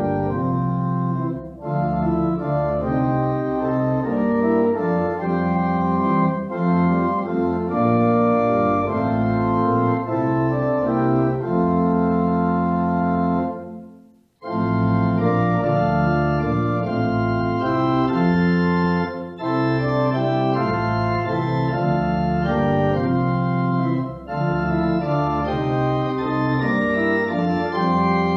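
Organ playing a hymn accompaniment in full, sustained chords. It stops for under a second about halfway through, then starts again.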